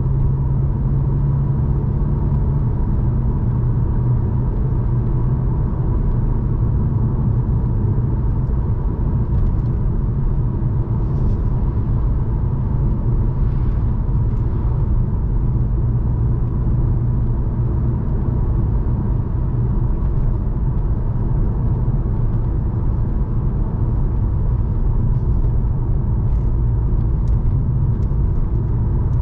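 Stage 2 remapped Volkswagen Scirocco driving at a steady pace: a steady low engine and road rumble with no revving.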